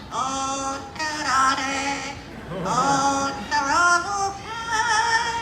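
A parrot singing a human song it has learned by mimicry, in a pitched voice that holds notes and slides between them.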